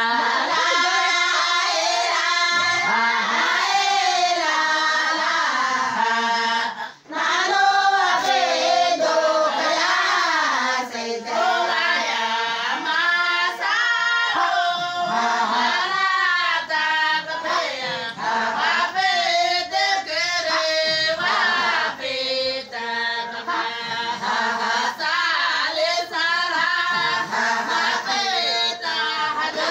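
Group of women singing a Somali Bantu song together in chorus, with a short break about seven seconds in.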